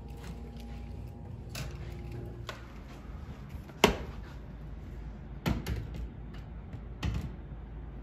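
A few short, sharp knocks and clicks, the loudest about four seconds in, over a low steady hum.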